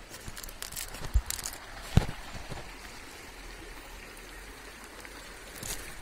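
Water trickling and dripping off a wet fishing net as it is handled and lifted. Two sharp knocks come about a second and two seconds in, the second one the loudest.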